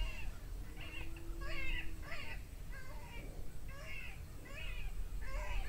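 Electronic predator game call playing through its speaker: a high, falling, animal-like distress cry repeated about every half second.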